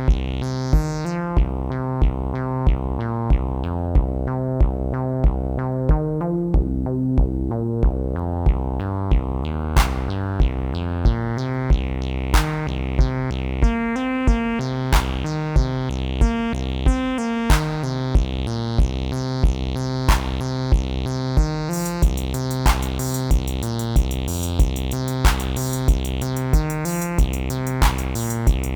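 Amiteque AR-110 analog drum synthesizer playing a looping electronic pattern: a steady kick about one and a half times a second, with snare-like hits, over a pitched synth part. A fast hi-hat pattern comes in about two-thirds of the way through.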